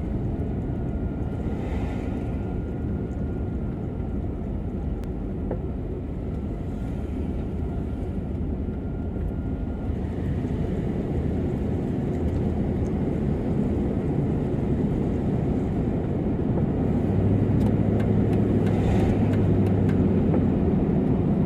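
Steady low rumble of a vehicle running, with a low hum held for a few seconds near the end, growing slightly louder in the second half.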